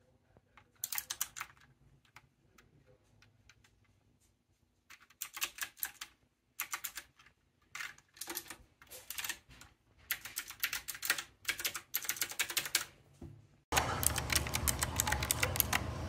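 Typing on a typewriter-style mechanical keyboard with clicky blue switches and round keycaps: bursts of rapid clicks with short pauses between them. About two seconds before the end, a louder steady hiss and hum comes in abruptly under the clicking.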